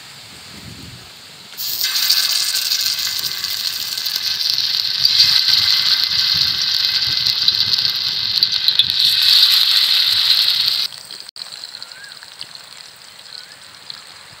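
Hot oil sizzling loudly on a heated iron tawa, starting suddenly about two seconds in and cutting off sharply near eleven seconds; a fainter sizzle of fish steaks frying in the oil follows.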